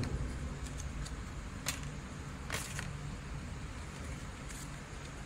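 Folded paper airplanes handled on a wooden table: a few short paper crinkles and taps, the clearest about two and a half seconds in, over a steady low rumble.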